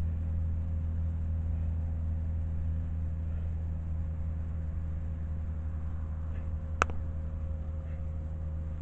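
Steady low mechanical hum, unchanging throughout, with one sharp click about seven seconds in.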